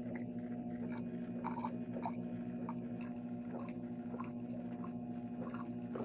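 Black+Decker single-cup drip coffee maker brewing: a steady low hum under irregular small pops and crackles as the heater pushes hot water up through the machine.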